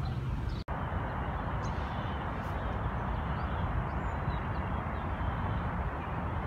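Steady outdoor background rumble, heaviest at the low end, with a few faint, short high bird chirps. The sound drops out for an instant about half a second in.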